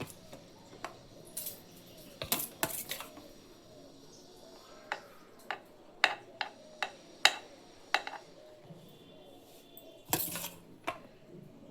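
Scattered light clicks and clinks of a utensil against a dish as cooked chicken pieces are spooned onto a pizza base, a dozen or so separate knocks with a short scraping burst near the end.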